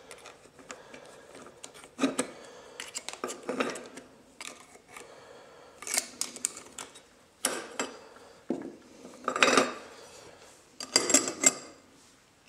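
Steel internal parts of a 4L60E automatic transmission clinking and clattering as they are handled and pulled apart by hand: irregular clusters of sharp metallic clicks and knocks, with short quiet gaps between.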